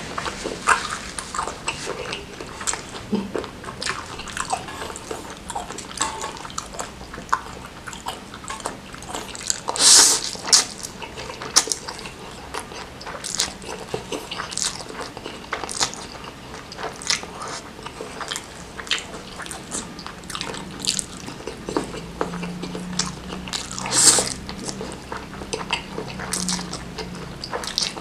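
Close-miked eating of spicy noodles: wet chewing and lip-smacking clicks throughout, with louder slurps of noodles, the loudest about ten seconds in and again a few seconds before the end.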